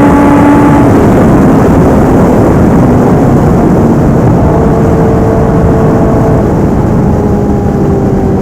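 Kawasaki ZX-10R inline-four with a full aftermarket exhaust system, running hard under way, heard from the rider's position. The engine note holds, drops at about a second in, then settles at new pitches a few times, over a loud low rush of road and wind noise.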